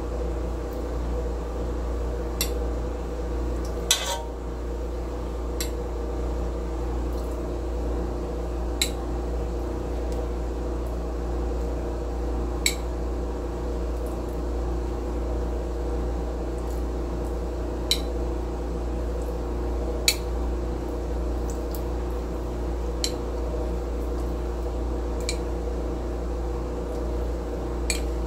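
A metal spoon clinking against a bowl and pot about ten times, a few seconds apart, as saffron milk is spooned over the rice, over a steady hum.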